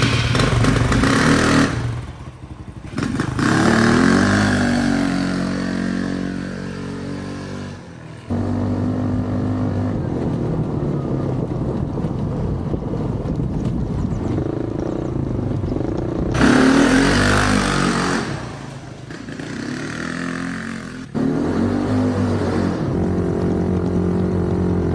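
Freshly rebuilt Polaris RZR 170's small single-cylinder four-stroke engine running as the buggy is driven, revs rising and falling with the throttle. The sound changes abruptly about eight seconds in and again about twenty-one seconds in.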